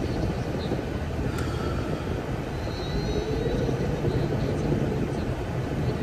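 Nissan Fairlady Z (Z34) on the move: steady low engine and road rumble. A few faint high chirps come near the middle.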